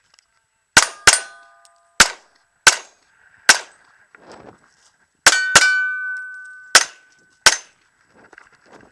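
A string of nine handgun shots at an uneven pace, several followed by the ringing of struck steel targets. Two of the rings carry on for about a second.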